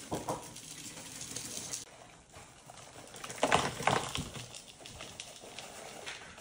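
Granulated unrefined cane sugar pouring from a bag through a funnel into a plastic jug, a steady hiss. About three and a half seconds in there is a short cluster of louder knocks and rattles.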